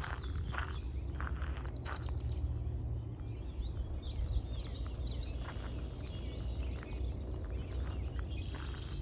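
Songbirds chirping and singing over a steady low rumble. Footsteps crunch along a path in the first couple of seconds and start again near the end.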